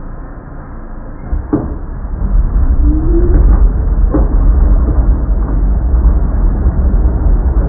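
NYC subway train running between stations: a deep rumble that swells about a second and a half in and stays loud, with two sharp knocks and a short rising squeal in between.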